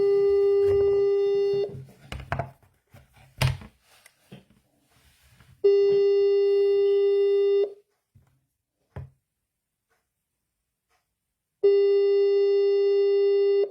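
Telephone ringback tone on an unanswered outgoing call: a steady single-pitched tone lasting about two seconds, heard three times about six seconds apart. A few faint clicks and knocks come between the tones.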